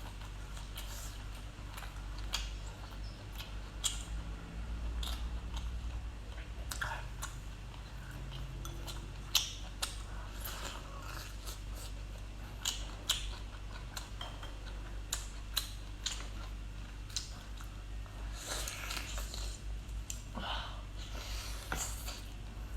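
A person chewing and biting food close to the microphone, with irregular wet crunches and clicks, over a steady low hum.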